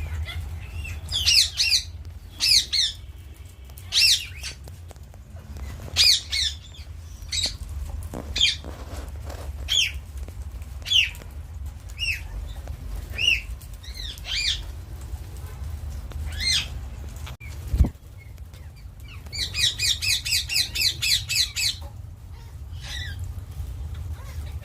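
Green parrot squawking: loud, harsh calls roughly once a second, then a fast run of rapid chattering calls near the end. A single thump partway through, over a steady low hum.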